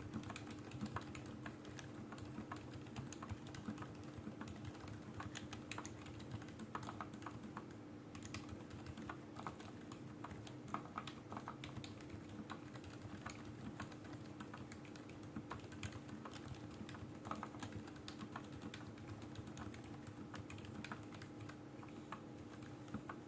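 Continuous typing on a Keychron K6 mechanical keyboard with Cherry MX Silent Black linear switches and ABS keycaps: soft, muted keystrokes in quick irregular runs, over a faint steady hum.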